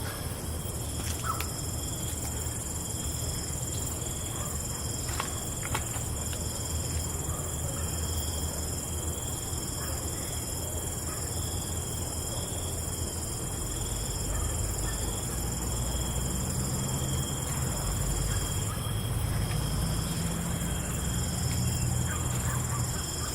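Steady night chorus of crickets and other insects: several high, continuous trills that hold throughout. Under it is a low rumble that swells a little after the middle, with a few faint clicks.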